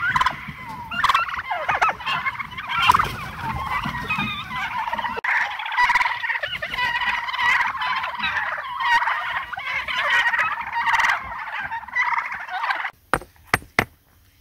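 A flock of domestic turkeys gobbling and calling, many voices overlapping, with a few sharp clicks near the end.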